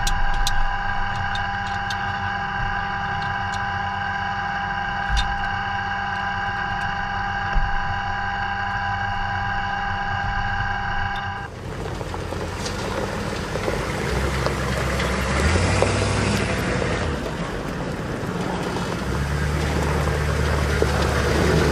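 A steady mechanical whine made of several stacked tones, with a few sharp clicks, from the Oerlikon GDF twin 35 mm anti-aircraft gun mount. About halfway through it cuts off suddenly, and a Humvee-based Avenger air-defence vehicle's diesel engine is heard running under a rush of wind noise.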